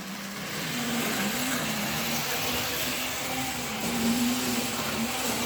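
Motor of an old model railway DMU running along the track: a steady mechanical hum with a tone that wavers slightly in pitch.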